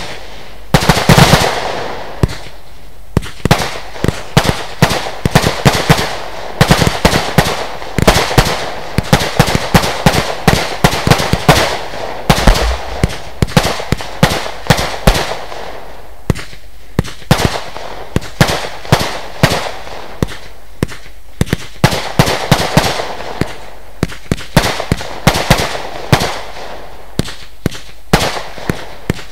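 Lesli Dezemberfest 512-shot compound firework cake firing: sharp shots and bangs come rapidly and irregularly, several a second, over a steady hiss from the burning effects.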